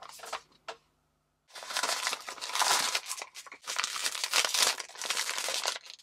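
A foil blind-box bag crinkling loudly as it is handled and torn open by hand. The crinkling starts about a second and a half in, after a few light clicks of the cardboard box.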